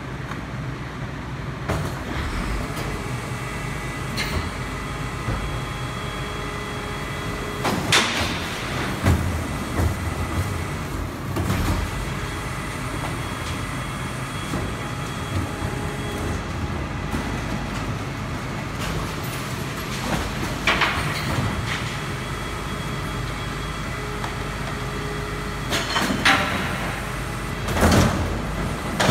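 Garbage truck engine running steadily, with several short, loud hissing bursts breaking in over it.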